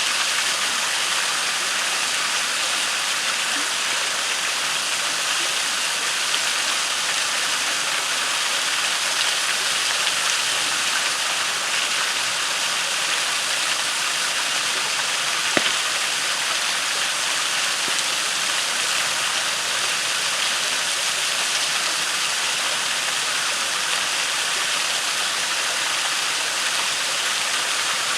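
Waterfall and creek water rushing steadily, with a wood campfire crackling faintly over it and one sharper pop about halfway through.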